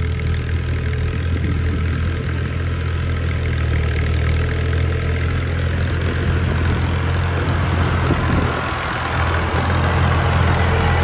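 Full-size diesel tractor engine running steadily at low revs while pushing soil with a front blade, getting a little louder in the second half.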